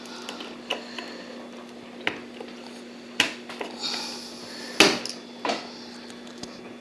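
A handful of separate light metallic clicks and knocks, about six over several seconds, from a Swiss Army knife and a freshly sawn screw being handled.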